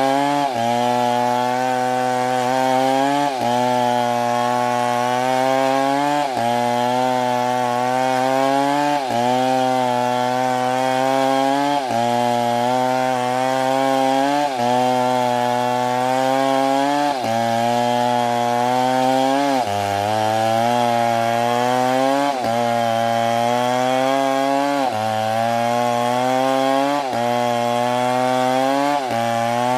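Chainsaw engine running hard under load, its pitch briefly sagging and recovering about every two and a half to three seconds as it cuts through wood.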